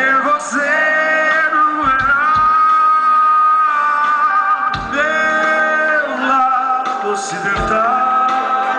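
Live rock band performing: a man sings long held notes into a microphone over electric guitars and drums, heard through the crowd's camera microphone.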